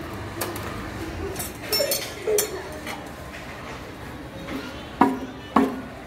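Light metallic clinks and taps of hand tools and feeler gauges being handled around an open primary drive, with two sharp clicks near the end.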